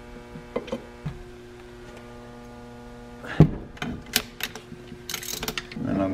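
Ratchet and crow-foot wrench clicking and clinking against metal as the exhaust manifold nuts are tightened on the engine, with a sharp knock about three and a half seconds in and a brief burst of rapid clicking near the end. A steady hum runs underneath.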